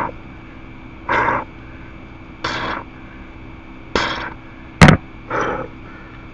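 Hard, forceful breaths or grunts, one with each rep of a 70 lb dumbbell bent row, coming about every second and a half. A single sharp knock about five seconds in is the loudest sound.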